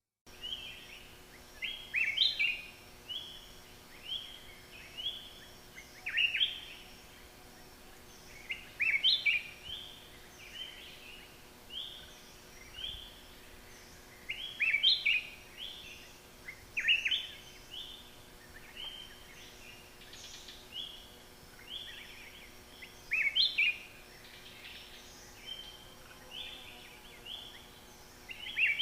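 Black-crested bulbul (Pycnonotus flaviventris) singing. It gives short phrases of quick, bright notes, with a louder phrase every few seconds and softer notes in between.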